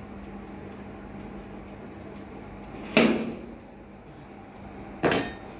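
Two sharp clacks about two seconds apart as a Black+Decker countertop toaster oven's door and rack are handled with a metal utensil, over the oven's steady low hum.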